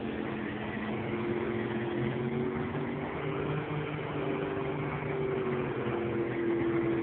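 Engine of a lifted four-wheel-drive mud truck running steadily, its pitch wavering a little but never revving hard.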